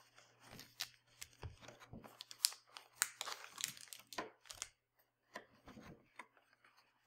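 Trading card pack wrapper being torn open by hand, with irregular crackling and crinkling of the foil and a short pause about five seconds in.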